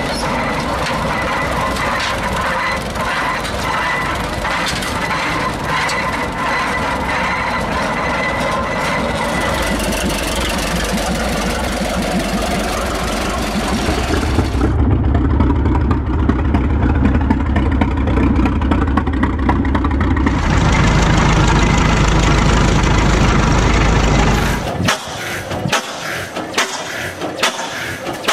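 Samson Sieve Grip Model S-25's 6.3-litre four-cylinder distillate engine running, with a heavy low rumble through the middle stretch. Near the end it changes suddenly to the sharp, uneven strokes of a Fairbanks Morse single-cylinder tractor engine.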